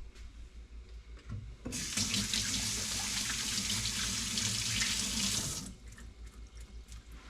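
Kitchen tap running into the sink for about four seconds, turned on a couple of seconds in and shut off abruptly.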